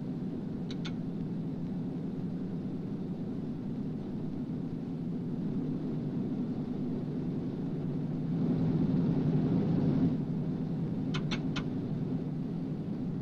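B-29 Superfortress's Wright R-3350 radial engines running with a steady deep rumble that swells briefly about eight seconds in. A few short clicks come near the start and again near the end.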